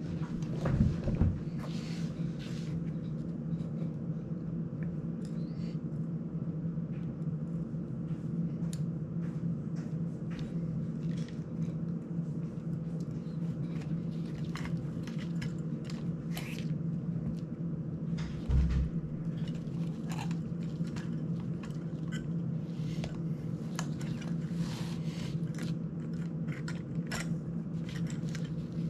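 Light plastic clicks and taps as a small FPV drone's frame and plastic prop guards are handled and fitted by hand, over a steady background hum. Two dull thumps stand out, one about a second in and one about two-thirds of the way through.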